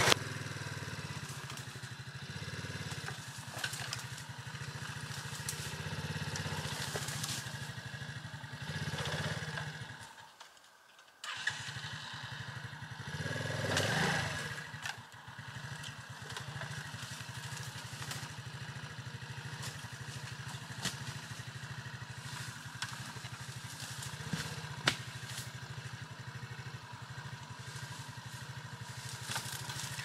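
Small single-cylinder motorcycle engine running steadily at a low idle. It drops out for about a second around ten seconds in, then swells briefly in a short rev, while the bike is hauled over a fallen log.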